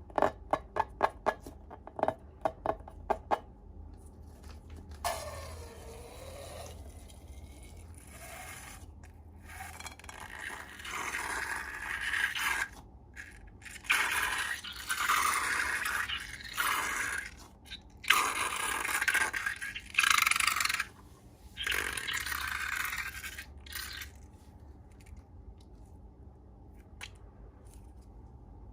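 Slime being handled and worked, heard as ASMR: first a quick run of about ten sharp clicks, then a series of long scraping strokes lasting a second or two each, which stop about four seconds before the end.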